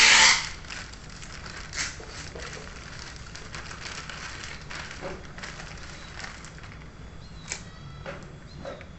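Plastic wrapping crinkling and rustling as a riflescope is pulled out of it, loudest at the very start, then a softer crackle with scattered sharp clicks.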